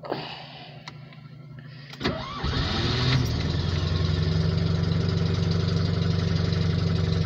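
Polski Fiat 126p's air-cooled two-cylinder engine cold-started at minus nine with the choke pulled: a brief crank about two seconds in, it catches within about a second and settles into a steady idle. Heard inside the cabin.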